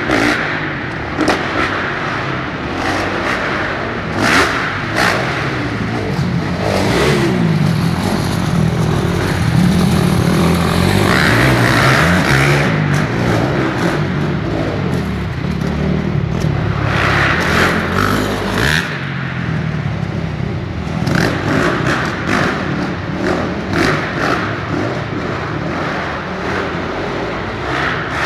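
Motocross dirt bikes revving on the track, their engines rising and falling as they ride, with one bike swelling louder every so often.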